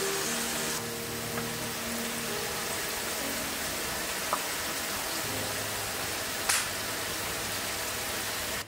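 A steady, even hiss with a few faint, light clicks over it.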